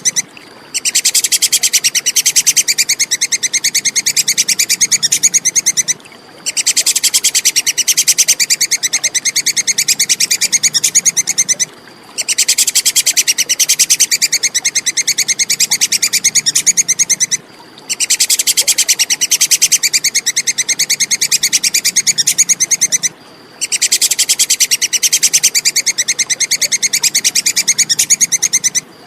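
Tupai kekes giving its loud, rapid, high-pitched chattering call in bouts of five to six seconds, each broken by a short pause, repeated over and over as masteran for songbirds to copy.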